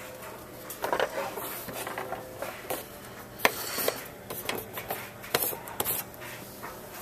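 Irregular rustling and scraping of shredded paper bedding and plastic cage parts, broken by sharp clicks and knocks, the loudest about halfway through: handling noise as the camera brushes into a hamster cage.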